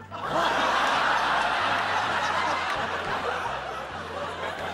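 Studio audience laughing: the laughter breaks out suddenly just after the start, stays loud for a couple of seconds, then slowly fades.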